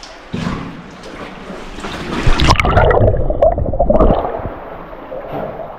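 Cave pool water splashing and gurgling as a caver lowers his face into a flooded sump. About two seconds in it swells into loud, muffled bubbling for about two seconds, then eases back to lighter splashing.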